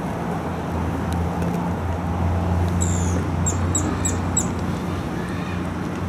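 A steady low drone of urban background noise. Around the middle, a quick run of about five short, high chirps.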